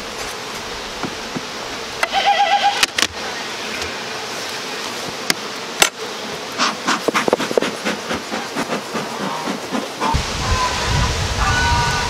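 Honeybees buzzing steadily around the hives. A short high-pitched call comes about two seconds in, a series of sharp clicks and scrapes from the metal hive tool follows midway, and a low rumble starts near the end.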